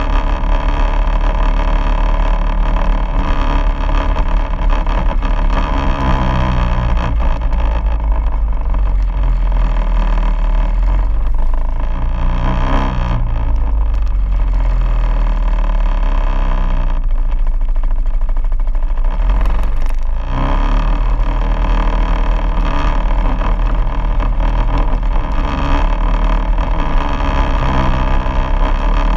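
Quad bike engine running under way, its revs rising and falling several times with the throttle.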